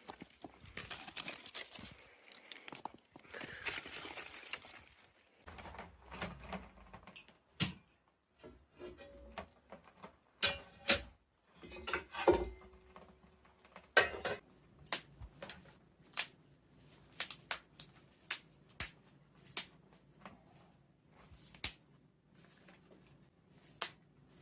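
Twigs and a small scrap-metal stove being handled while a fire is laid: rustling for the first few seconds, then scattered snaps, knocks and clicks, with a brief metallic ring about twelve seconds in.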